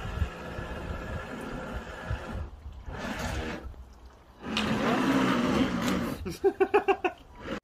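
Small electric motor of a radio-controlled model boat whirring in spurts as it is driven across a pool, with water noise. Near the end there is a short run of rapid, evenly spaced pulses.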